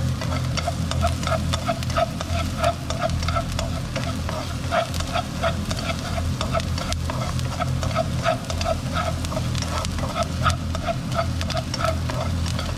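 Chopped onion sizzling in hot oil in a non-stick wok, stirred with wooden chopsticks that scrape and tap the pan in a steady rhythm, over a low steady hum. The onions are being fried until their edges brown, before the minced meat goes in.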